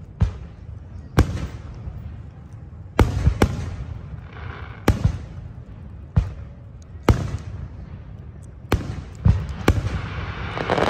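Aerial firework shells bursting, about ten sharp bangs at uneven intervals, each followed by a rolling echo. Near the end the bursts give way to a denser, continuous noise.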